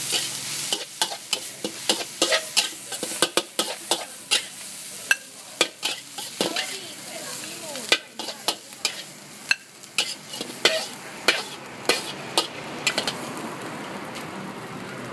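Fried rice with chicken and egg sizzling in a large metal wok, with a long metal spatula scraping and clanking against the pan in quick, irregular strokes as the rice is tossed and scooped out. The clanks stop a couple of seconds before the end, leaving only the sizzle.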